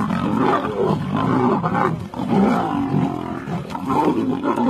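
Several lions fighting, their snarls and growls overlapping without a break.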